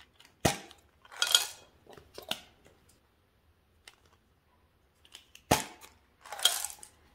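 Flip-top plastic cap of an M&M's Minis tube snapping open, followed by the small candy-coated chocolates rattling out into a glass dish. This happens twice, about five seconds apart, each time a sharp snap then a short rattle.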